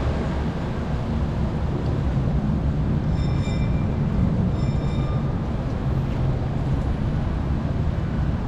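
Steady, loud low rumble with hiss, with two brief high-pitched squeals about three and five seconds in.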